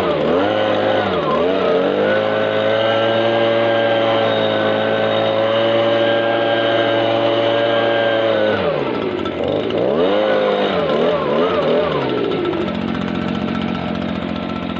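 Stihl BG56 leaf blower's small two-stroke engine being revved: a couple of quick throttle blips, then held at high revs for about six seconds. It drops, is blipped up and down again, and settles to a lower, rougher idle near the end.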